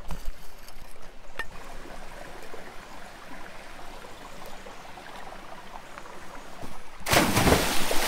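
A stream running steadily, with a couple of faint clicks early on. About seven seconds in, a much louder rushing noise suddenly starts.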